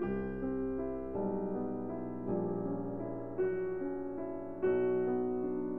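Background music: a slow piano melody, new notes or chords struck about every second or so.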